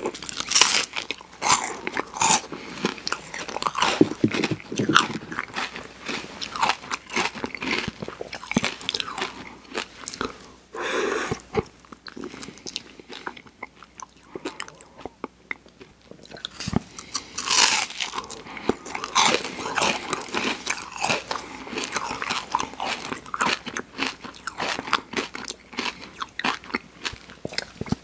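Close-miked biting and chewing of soft-serve ice cream in wafer cake cones: crisp crunches and crackles of the wafer with wet mouth sounds, easing off briefly about halfway before the crunching starts again.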